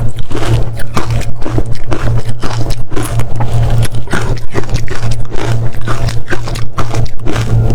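Close-miked biting and crunching of frozen matcha ice, a rapid run of dense crunches with no pause. A steady low hum sits underneath.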